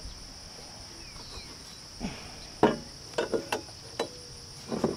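A few sharp knocks and clinks from about halfway, the first the loudest, followed by several quicker ones: a metal joist hanger bracket and a hammer being handled and set against a wooden floor joist. Under them runs a steady high-pitched drone of insects.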